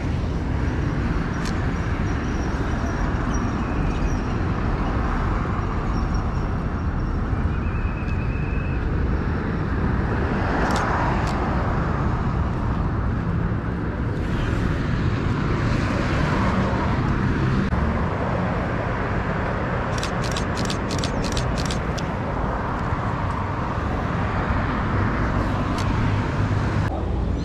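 City street traffic: passing cars swelling and fading over a steady low rumble. About twenty seconds in comes a quick run of about eight sharp clicks.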